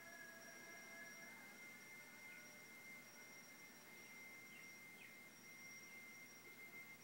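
Near silence: faint hiss with steady, thin, high-pitched electronic tones, some of which stop about a second in, and a few brief faint chirps in the middle.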